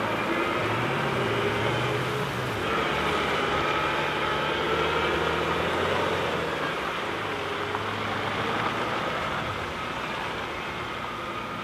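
Volvo FH tipper truck with a drawbar trailer, its diesel engine running as it drives off along the road. The sound fades slowly over the second half as the truck moves away.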